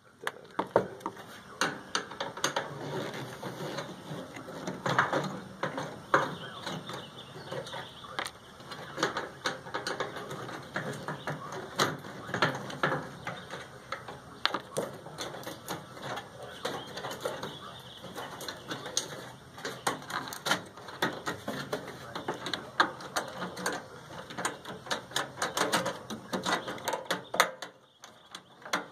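Microwave being taken apart by hand: a steady run of clicks, rattles and scrapes as wires and metal parts are worked loose.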